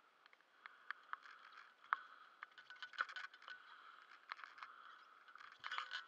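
Faint, irregular clicks, scrapes and knocks of a diver's gear shifting and rubbing as he moves in his drysuit and fins, over a faint steady background. A cluster of louder clicks comes near the end.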